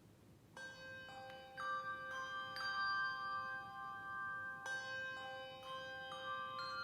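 Six-ringer handbell choir playing: the bells come in about half a second in and are struck one after another about every half second. Each one rings on, so the notes pile up into chords, and a fuller chord sounds about two-thirds of the way through.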